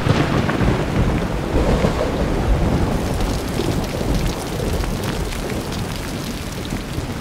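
Heavy rain pouring, a dense hiss of drops with a deep low rumble underneath. It comes in suddenly at the start and eases off gradually.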